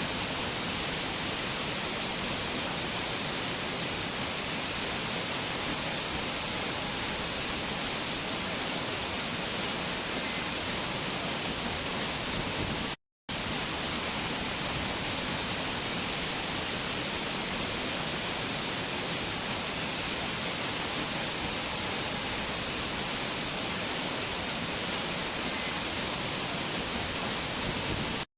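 Waterfall, water rushing in a steady, even roar that cuts out completely for a split second about halfway through.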